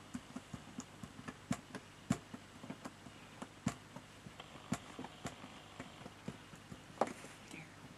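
Bamboo skewer tapping and pressing on glued paper layers: irregular light taps and clicks, with a louder tap about seven seconds in.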